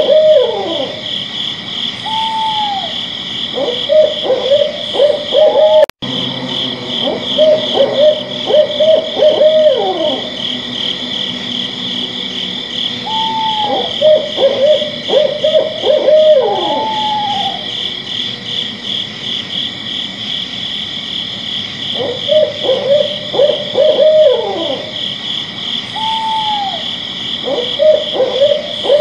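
An owl hooting in bursts of quick, low hoots, some sliding down in pitch, repeated every few seconds. A steady, high, pulsing chirring runs behind it.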